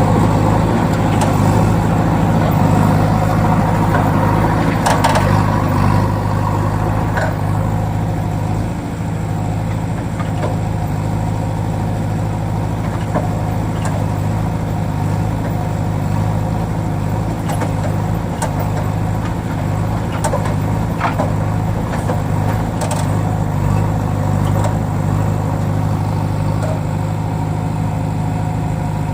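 Excavator engine running steadily with a low hum, a little louder in the first few seconds, with scattered clicks and knocks over it.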